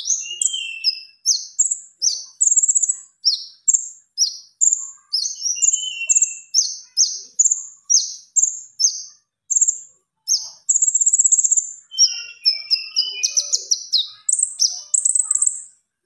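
A konin songbird singing a fast, unbroken stream of high-pitched chirps, slurred notes and short trills, with a brief pause about ten seconds in.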